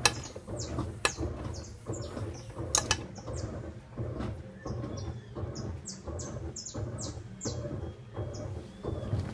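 Washing machines mid-wash: a steady low motor hum with water and wet clothes sloshing in irregular surges, and a few sharp clicks in the first three seconds.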